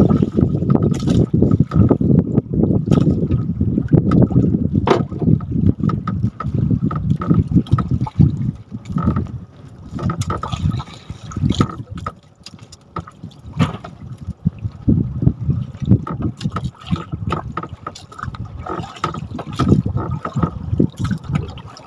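Water sloshing and splashing against the hull of a small wooden fishing boat at sea, with scattered knocks and uneven low rumbling; the sloshing is heaviest at first, eases about halfway, then picks up again.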